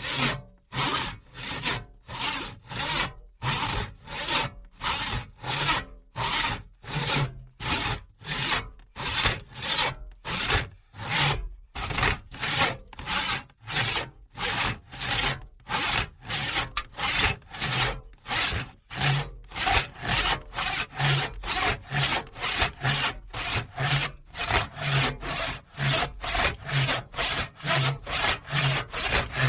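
Hand saw cutting through wood in a steady rhythm of about two strokes a second, each stroke a rasping scrape of the teeth through the wood.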